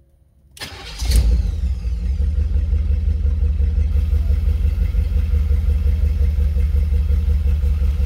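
Carbureted car engine cranking briefly and catching about a second in, on its first start after a timing chain replacement, then settling into a steady low idle of about 500 rpm.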